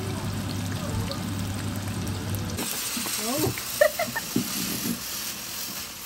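Breaded strips deep-frying in hot oil, sizzling steadily. About two and a half seconds in it changes to a ground-spinner firework spraying sparks with a brighter steady hiss, with a few short rising cries from voices.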